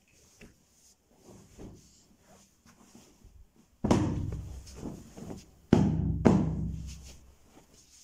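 Three thumps close to the microphone, one about four seconds in and two close together around six seconds in, each dying away over a second or so: a pillow being moved and knocked against the camera on the rug.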